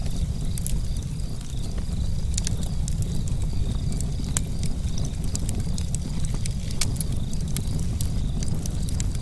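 Outdoor nature ambience: a steady low rumble with many scattered sharp crackles and clicks, over a faint high steady tone.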